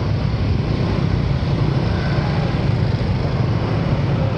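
Scooter and small motorcycle engines running at a crawl in jammed traffic, a steady low engine drone with no sharp events.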